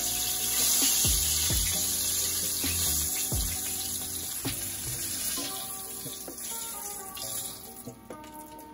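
Flour-dusted aholehole (Hawaiian flagtail) frying in hot oil in a skillet, a steady sizzle that grows fainter as the fish are lifted out. Background music plays over it.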